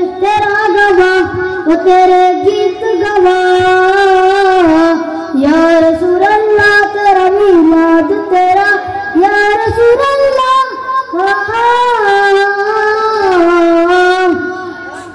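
A child's voice singing a devotional naat unaccompanied, in long ornamented phrases with wavering held notes. The phrase fades away near the end.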